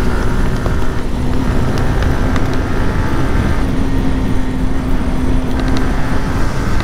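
Motorcycle riding at highway speed: heavy wind rush on the microphone over the engine's steady drone.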